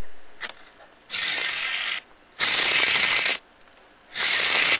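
Toy car's mechanism ratcheting in three bursts of about a second each, a rapid run of small clicks.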